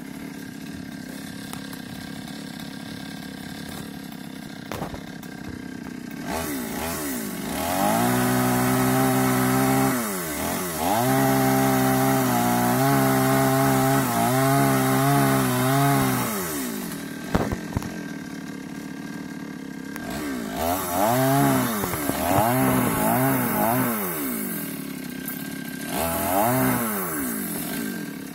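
Two-stroke gasoline chainsaw idling steadily, then revved to full speed for about eight seconds while cutting tree branches, its pitch dipping and recovering a few times under load. It then gives several shorter revs that rise and fall.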